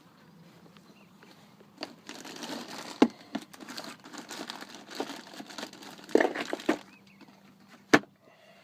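Rustling and crinkling from handling things, with a few sharp knocks, the loudest near the end.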